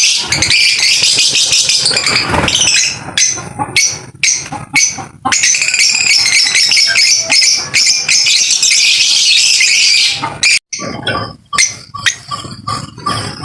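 Lovebirds chattering and chirping, a dense, shrill stream of scratchy calls that breaks into short pieces a few seconds in and thins out near the end.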